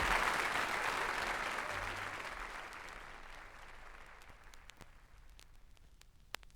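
Audience applause dying away steadily after the closing song, leaving a few faint clicks in the last couple of seconds and one sharper click near the end.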